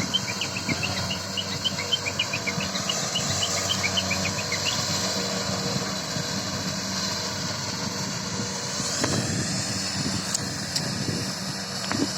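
An engine running steadily, with a run of short high chirps over the first few seconds.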